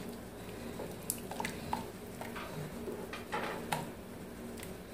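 A silicone spatula stirring thick soup in a stainless steel pot as a thickener is worked in, with a few light, scattered taps and scrapes against the pot.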